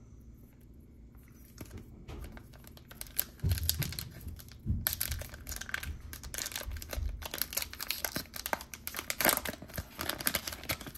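Pokémon trading-card booster pack wrapper being torn open and crinkled. The rapid crackling starts about a second and a half in, thickens from about five seconds in, and is broken by a couple of low bumps from handling.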